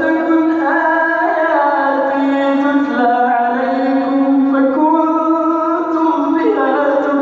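A male Quran reciter chanting in the melodic tajwid style, holding long ornamented notes that glide and step between pitches without a break.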